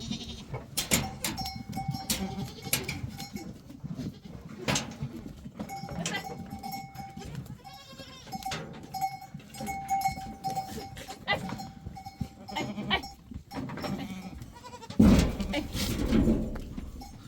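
Bells on goats ringing and clinking as the herd moves about, with scattered sharp knocks. A loud low rumble comes about fifteen seconds in.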